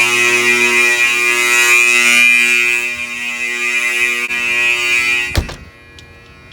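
Two 120-volt AC fire alarm horns, a Wheelock 31T-115 and an Edwards 374A Adaptahorn, sounding together with a steady, harsh, really loud buzz. About five and a half seconds in the sound cuts off with a sharp click.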